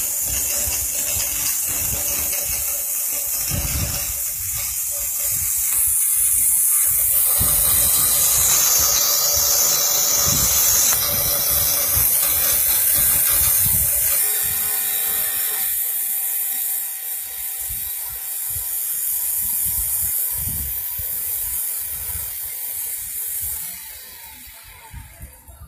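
CNC router spindle running at high speed with its bit milling through a plastic sheet: a loud, steady hiss and whine of the cutter chewing plastic. It fades away near the end.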